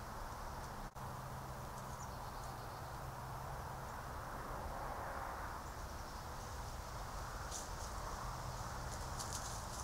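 Steady hiss and low electronic hum from a trail camera's microphone, with a brief dropout about a second in. Light crackles of a coyote's footsteps in dry leaf litter come in near the end.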